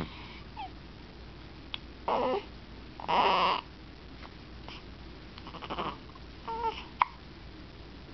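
A run of hiccups: about five short, sudden sounds at uneven intervals, the loudest about three seconds in, with a sharp click near the end.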